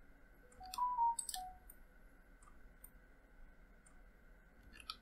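Computer mouse clicking several times at uneven intervals as edges are picked one by one. About a second in, a brief run of a few clear tones steps up and back down. A faint steady high hum sits underneath.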